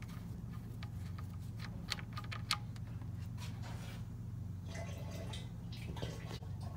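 Engine oil drain plug worked loose by hand with a few small clicks, then oil pouring in a thin stream into a drain pan, starting about four and a half seconds in. A steady low hum runs underneath.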